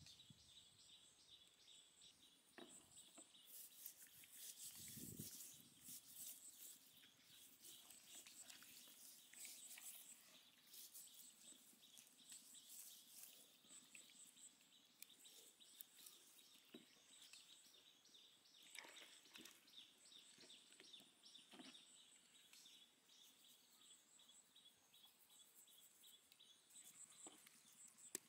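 Near silence: faint high-pitched background chirping, with soft gritty crackles of hands rubbing salt into the skin of a raw duck.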